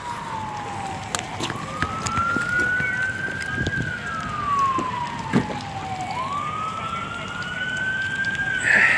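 Emergency vehicle siren on a slow wail, its pitch rising and falling about every five seconds, with scattered clicks and knocks.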